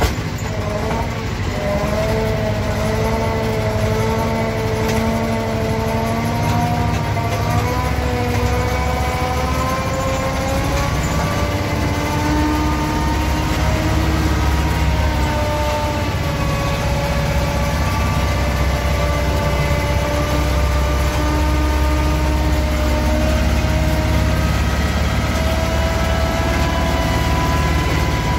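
Yağmur YET 510 patpat (single-axle tractor) engine running steadily, heard from inside its cab, its pitch drifting slowly up and down. It is holding back a load of over a ton of stones on a steep downhill, with little use of the brakes.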